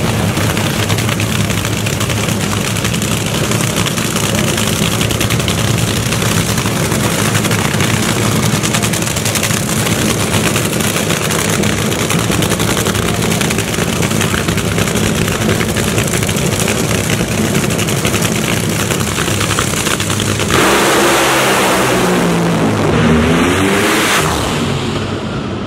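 Drag racing car engines running loudly at the starting line. About twenty seconds in comes a sudden louder blast as two cars launch at full throttle down the strip, and their engine pitch bends downward as they pass and fades near the end.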